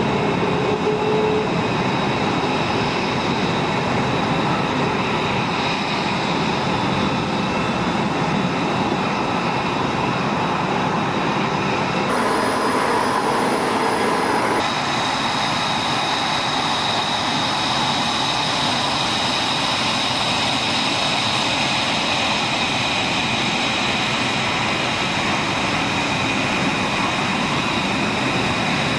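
Lockheed Martin F-22 Raptor's Pratt & Whitney F119 turbofan jet engines running on the flight line: a steady rushing noise with a high whine over it. The sound shifts briefly around twelve seconds in and again near fifteen.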